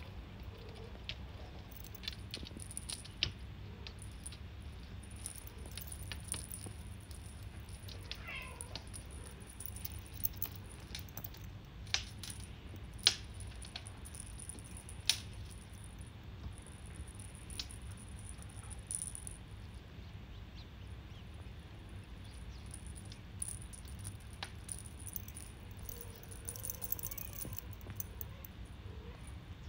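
Kittens playing with a beaded wand toy on a glass tabletop: scattered sharp clicks and taps of the hard beads against the glass, a few of them louder, over a steady low hum. A faint kitten meow, falling in pitch, comes about eight seconds in.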